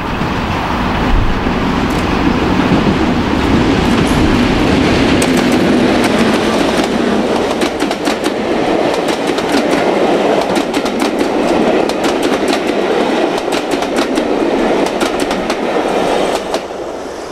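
Class 37 diesel-electric locomotive with its English Electric V12 engine passing close by, hauling a train of coaches. A deep engine rumble in the first few seconds gives way to a rapid, irregular clatter of wheels over rail joints as the coaches go by, fading near the end.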